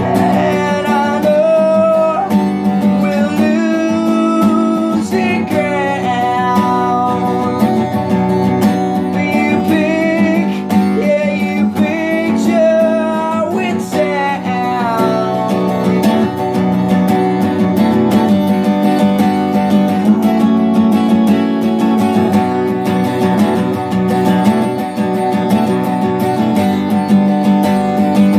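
Steel-string jumbo cutaway acoustic guitar strummed in steady chords, capoed up the neck, with a man singing over it for about the first half; after that the strumming carries on alone.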